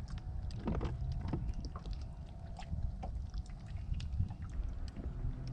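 Strong wind buffeting the microphone in a gusty low rumble, with scattered small ticks and slaps of water lapping against a small fishing boat's hull.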